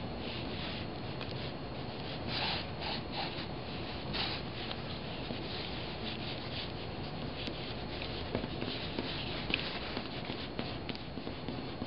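Two pens scratching across paper in quick, short strokes as both hands draw at once. A few strokes stand out louder, about two and a half and four seconds in, over a faint steady background hiss.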